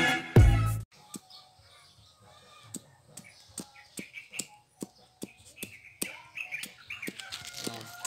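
Music cuts off abruptly about a second in, followed by quiet outdoor sound: birds chirping faintly over a run of light clicks and taps, about two a second.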